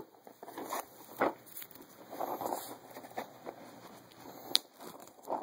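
Handling noise from a box being moved over carpet and from a hand-held camera: scattered soft rustles and taps, with a sharp click about four and a half seconds in.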